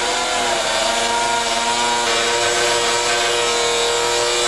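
Oma System Auctor CP99 hydraulic profiling machine, its diamond profile wheel grinding the edge of a granite slab under a water feed: a steady whine over grinding noise. The pitch wavers briefly near the start, then holds.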